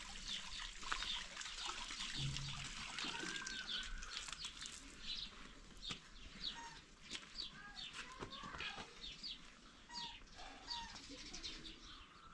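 Birds chirping: many short, high calls overlapping one another.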